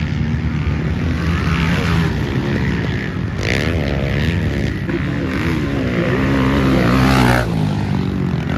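Several motocross bikes racing, their engines revving up and down with the pitch rising and falling. The engines are loudest about seven seconds in, then ease off.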